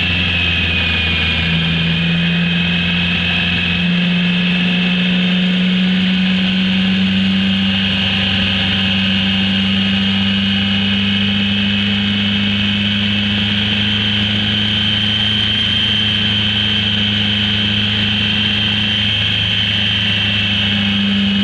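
Motorcycle engine running steadily under way, heard on board the bike over a haze of wind and road noise. Its note steps up in pitch about a second and a half in and again near four seconds, then holds steady.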